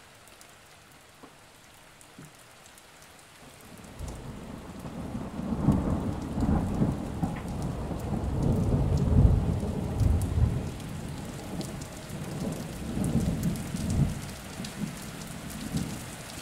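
Steady hiss like heavy rain, with irregular low rumbling swells, coming in about four seconds in after near quiet.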